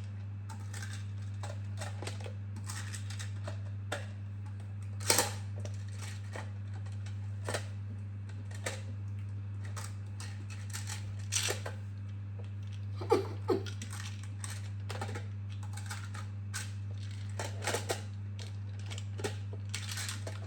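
Plastic magnetic building tiles clicking and clacking irregularly as they are handled and snapped together, the loudest clacks about 5 and 13 seconds in, over a steady low hum.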